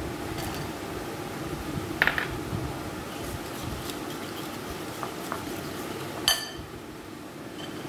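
A wire whisk and a small bowl clinking against a ceramic mixing bowl as chopped onions are tipped into beaten eggs and stirred in: a few sharp ringing clinks, the loudest about two seconds in and just after six seconds, over a steady low hum.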